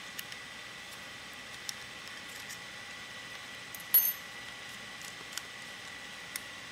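Small metallic clicks and taps of a hand tool working the screws of a PMI Piranha R6 paintball marker's trigger frame, with one louder clink about four seconds in.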